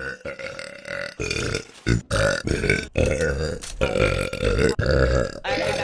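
A woman belching: a few short, choppy burps, then a long drawn-out belch from about two seconds in that holds a steady pitch for some three seconds.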